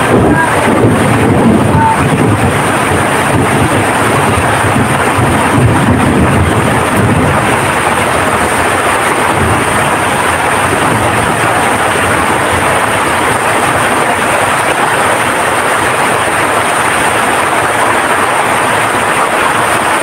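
Heavy rain pouring down in strong wind, a loud steady rush, with heavier low rumbling gusts in the first several seconds.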